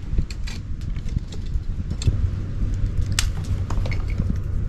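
Wind buffeting the microphone, with scattered light clicks and clinks throughout, the sharpest about three seconds in.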